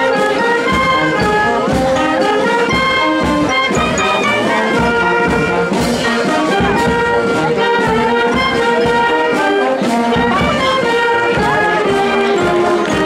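Brass band playing a march, trumpets and trombones carrying the tune over a steady drum beat.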